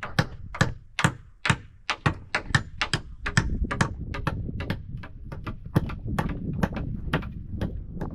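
A rapid, irregular series of sharp knocks, about three or four a second, over a low rumble that gets stronger from about three seconds in.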